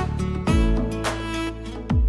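Background music with a deep bass beat and plucked guitar-like notes.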